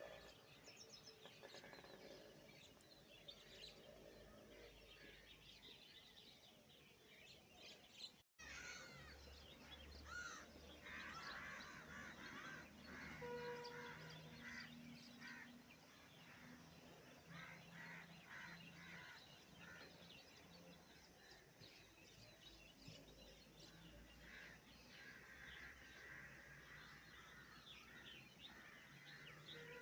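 Faint outdoor ambience with birds calling and chirping, busiest in the middle stretch. The sound drops out for an instant about eight seconds in.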